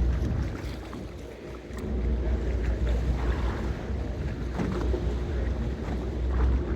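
Tour boat's engine running steadily under way, a low hum beneath wind noise on the microphone, which eases briefly about a second and a half in.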